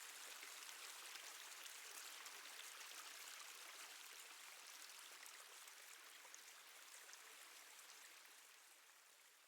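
Faint water dripping and trickling, a fine, even patter of many small drops, processed to sound as if inside a cave. It fades a little near the end.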